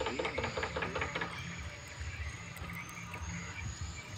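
Dog eating from a plastic dish: a quick run of chewing and lapping sounds, about seven a second, that stops about a second in. After it comes a low, steady rumble.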